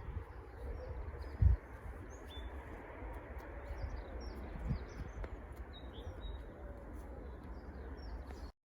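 Small birds chirping and twittering over a steady low rumble, with one thump about a second and a half in. The sound cuts off suddenly near the end.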